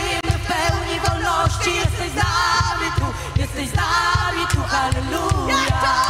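Live worship band: a woman singing lead in Polish with a second woman's backing vocals, over a full band with a steady drum beat.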